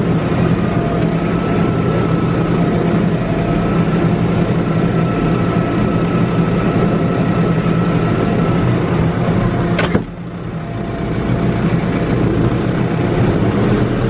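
Tractor engine running steadily under load, heard from inside the closed cab, with a faint steady whine over the low drone while it tows a snow roller. About ten seconds in there is a sharp click, and the engine sound drops for a moment, then builds back up.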